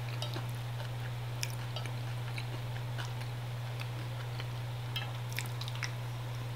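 A person quietly chewing a mouthful of vegetable salad, with a few faint scattered clicks, over a steady low hum.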